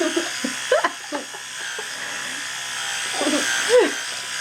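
Electric toothbrush buzzing steadily while brushing teeth, with brief voice sounds about a second in and again near the end.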